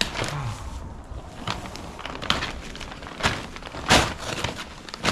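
A paper feed bag of cracked corn being torn open and handled: a run of irregular rustling and tearing noises, the loudest about four seconds in.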